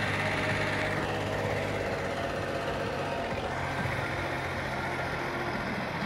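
Tractor engine running steadily at low revs as it pulls a wagon past, a low even hum. Its note shifts slightly about three and a half seconds in.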